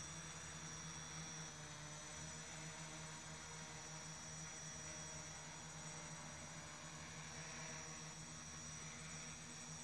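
F330 quadcopter's four brushless outrunner motors and 8x4.5 slow-fly propellers holding a hover: a steady buzzing hum with a thin high whine above it.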